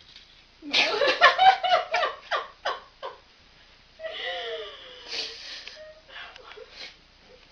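A person laughing hard: a quick run of laughs about four a second, then a longer wavering voiced laugh, and a few short laughs near the end.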